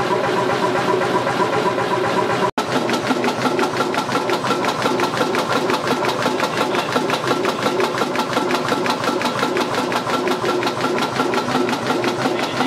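Large stationary hot-bulb (semi-diesel) engines running at a steady speed, each giving an even, fast knocking beat of firing strokes. The sound cuts to a second engine about two and a half seconds in.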